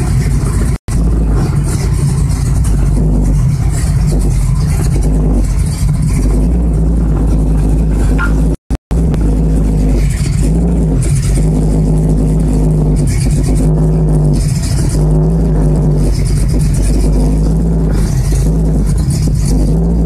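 A nitrous-equipped classic car's engine running, heard from inside the cabin and distorted in the recording, its pitch rising and falling as it revs in the second half. It is running without the nitrous in use. The audio cuts out briefly twice, about a second in and near the middle.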